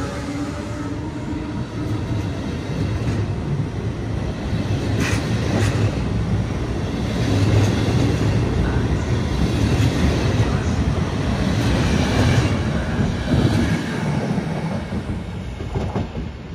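Electric regional train pulling out and rolling past, its wheels clattering over the rail joints with scattered sharp clicks. The run grows louder toward the middle and eases off near the end.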